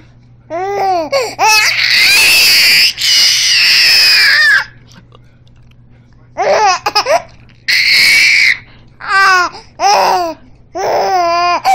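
Baby giggling in short bursts and squealing, loud and high-pitched: a long squeal about two seconds in, a short pause, then more runs of giggles with a shorter squeal near the middle.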